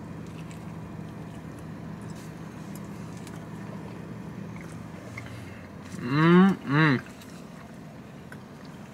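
A man chewing a bite of mochi with red beans, faint clicks of chewing over a steady low hum. About six seconds in he gives two short closed-mouth hums, each rising and falling in pitch, like a thoughtful "mm-hmm" while tasting.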